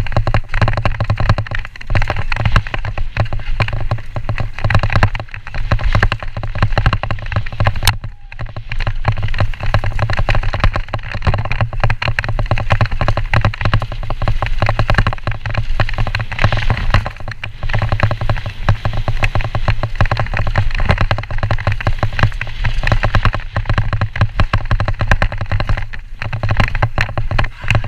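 Trek Slash 29er mountain bike rattling and clattering continuously over a rough dry dirt trail at speed, a dense stream of clicks and knocks from tyres, chain and frame, with steady wind rumble on the camera's microphone.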